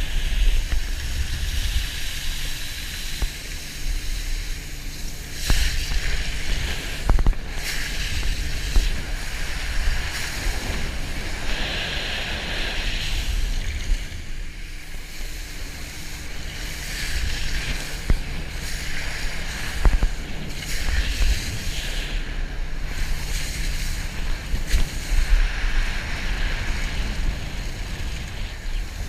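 Wind buffeting the microphone over the hiss and spray of a wakeboard cutting across the water, with the tow boat's engine droning faintly underneath.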